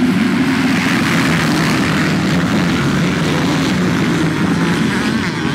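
A full pack of motocross bikes accelerating hard off the start at full throttle. Many engines run together in a loud, continuous din as the bikes sweep past close by.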